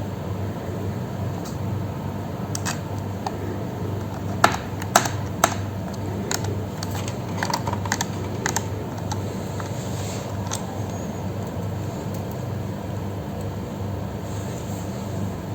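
Scattered small clicks and taps of laptop parts being handled, including three sharper clicks about half a second apart, over a steady low hum.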